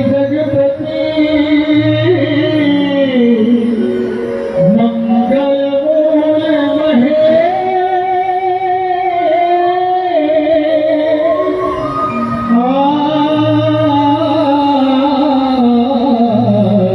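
Stage song from a Ramleela performance: a voice singing long, wavering held notes over instrumental accompaniment.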